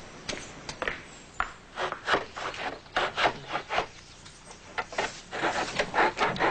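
Repeated strokes of a hand tool working wood, rasping against the surface. The strokes are spaced out at first and come faster and more regularly from about five seconds in.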